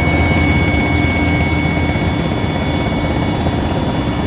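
Helicopter running steadily: a loud, even engine and rotor noise with a high steady whine over it.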